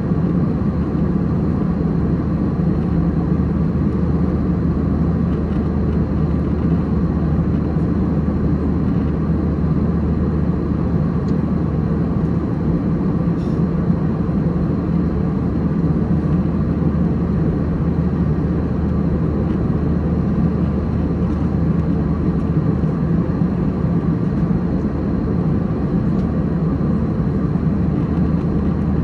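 Steady low drone inside the cabin of an Airbus A321-231 at cruise, from its jet engines and the airflow over the fuselage, with a faint thin steady tone high above it.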